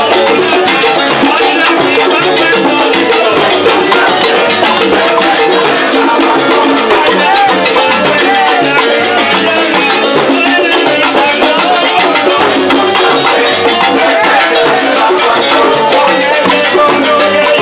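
Live salsa band playing loudly without a break, driven by congas and timbales with a dense, fast percussion beat.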